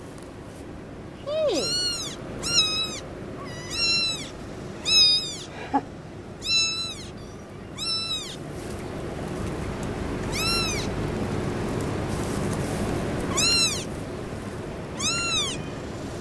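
Young kittens from a Munchkin litter mewing: about nine short, thin, high-pitched mews, each rising and falling in pitch, with a longer pause in the middle. During that pause a soft rustling noise rises.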